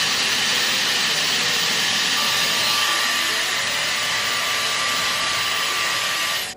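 Handheld hair dryer running, a steady rushing blow with a thin whine that joins about two seconds in; it switches off abruptly near the end.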